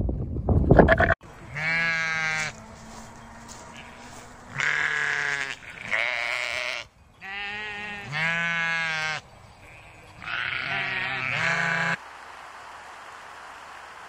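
A mixed flock of sheep and goats bleating: about five long, wavering bleats spread over ten seconds. For the first second, wind buffets the microphone, and near the end the sound changes to a steady hiss.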